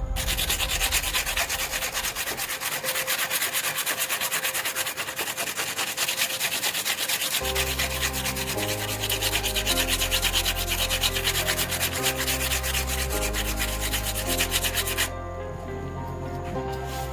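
Fast, scratchy abrasive sanding of the rusted steel shear blades, which stops abruptly near the end. Background music with a bass line joins about halfway through.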